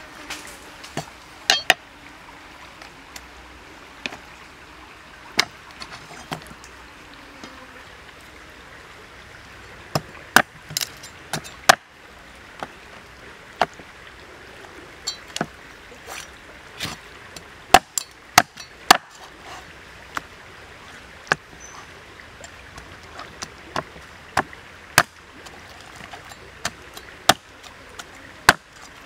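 Large knife blade chopping a raw black chicken on a round wooden chopping block: irregular sharp knocks, some in quick pairs and short clusters.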